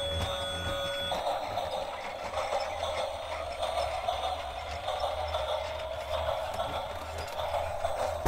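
Battery-operated toy steam train running round its plastic track, a steady whirring noise. A few steady electronic tones cut off about a second in.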